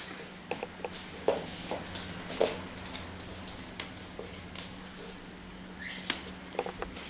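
Clear plastic wrapping on boxed appliances crinkling and rustling in short, irregular crackles and clicks as it is handled, over a faint steady hum.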